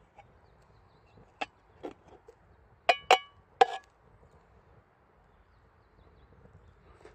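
Metal cookpot clinking and knocking: a handful of sharp knocks about one and a half to four seconds in, the loudest two near the middle ringing briefly.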